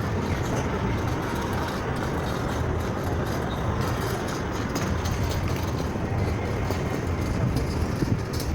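City street ambience: steady traffic noise with engines running past and a general background murmur.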